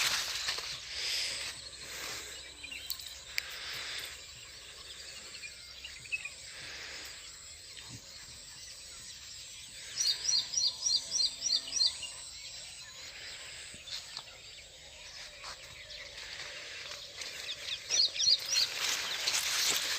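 A bird calling a rapid run of short, high chirps, about four a second, over rural outdoor noise with some rustling; a shorter run of the same chirps comes near the end.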